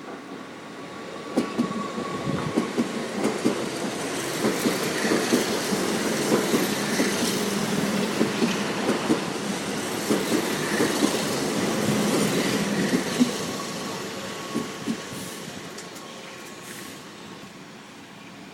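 Keihan electric train running by on the track, its wheels clacking over the rail joints. The sound builds over the first few seconds, holds with rapid irregular clicks, then fades away over the last several seconds.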